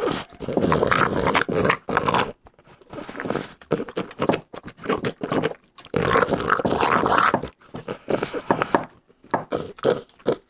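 French bulldog licking and gnawing at a hard, frosted, bone-shaped dog cookie, with wet mouth noises in irregular bouts broken by short pauses.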